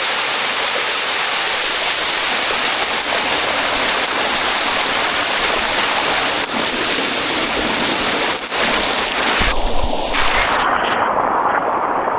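Water of a limestone waterfall cascade rushing steadily, a loud even hiss. About eight and a half seconds in the sound changes abruptly and turns fuller and duller.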